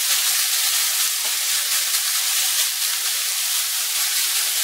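Ground turkey sizzling steadily in a hot nonstick skillet, browning and giving off steam.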